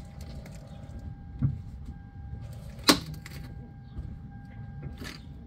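Toyota front strut's corroded upper mount binding and letting go as the steering is turned, with the car jacked up and the engine off: a low thump about a second and a half in, a sharp pop, the loudest, near the middle, and a fainter pop near the end. The pops and booming come from a strut top that is too corroded to rotate freely.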